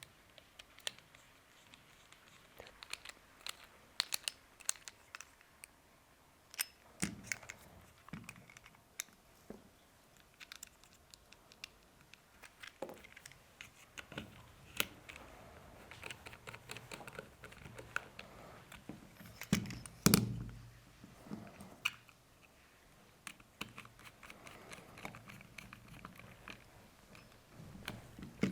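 Scattered small clicks, ticks and taps of tools and pistol parts being handled while the grip screws of an airsoft pistol are screwed back in, with a few duller knocks about seven and twenty seconds in.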